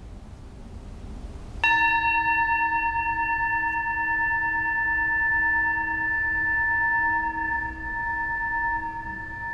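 Faint background noise, then about a second and a half in a meditation bell is struck once. It rings on in a clear tone of several pitches, fading slowly.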